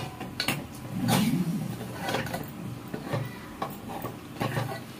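Scattered clinks and knocks of cooking utensils against pots, a few sharp strikes about a second apart.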